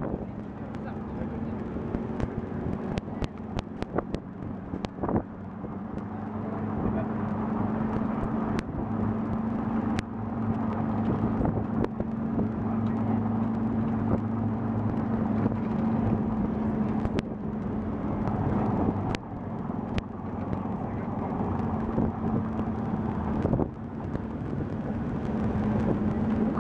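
Engine and road noise of a songthaew pickup taxi, heard while riding in its open rear bed: a steady engine hum that grows louder and stays strained after about six seconds, with wind and road rush, and sharp knocks and rattles now and then.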